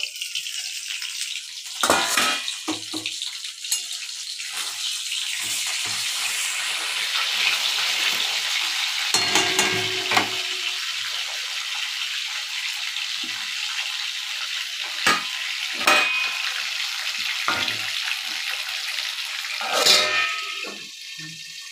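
Pieces of fish sizzling as they fry in oil in an aluminium kadai, with the clinks and scrapes of a metal spatula turning them several times. Near the end a clank is heard and the sizzling goes much quieter as the pan is covered with a steel plate.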